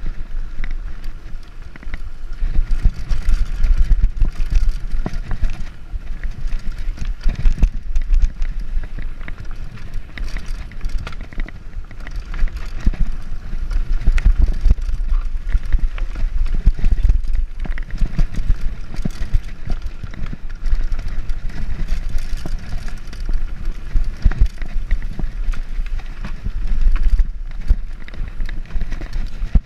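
Wind buffeting the microphone of an action camera on a mountain bike at speed, with tyres running over dirt and loose stones. The bike rattles and knocks many times over bumps.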